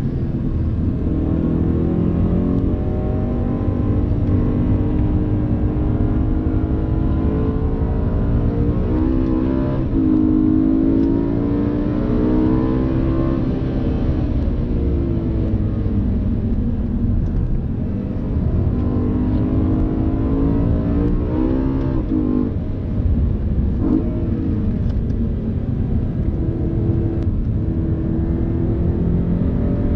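BMW M3 E92's V8 engine heard from inside the cabin under hard driving, its pitch repeatedly climbing under acceleration and dropping back at each gear change or lift.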